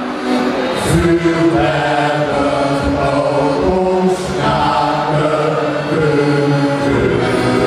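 A man singing a folk-style New Year song into a microphone over a sound system, with accordion accompaniment.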